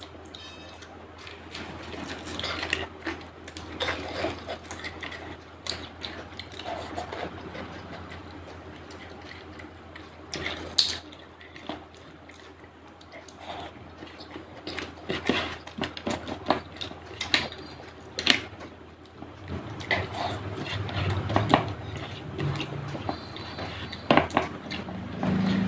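Close-miked eating sounds from a meal of chicken curry, rice and papad: wet chewing and mouth sounds, with scattered sharp clicks and clinks of a plate and cutlery, a few of them louder.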